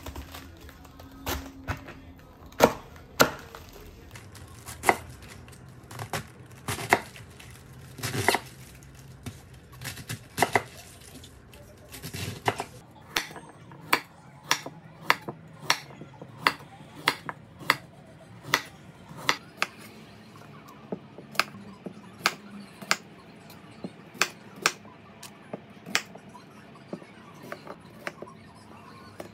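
Chef's knife cutting cabbage, then carrots and potatoes, on a wooden cutting board. Each cut ends in a sharp knock of the blade on the board, scattered at first and then at a steady pace of about one a second.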